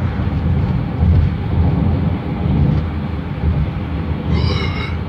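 Car tyres rumbling steadily over rough, poor asphalt, a loud low road drone. A brief higher pitched tone sounds near the end.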